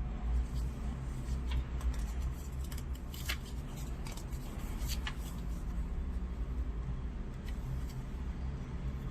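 A steady low hum with a few sharp clicks and rustles scattered through it, the loudest about three and five seconds in.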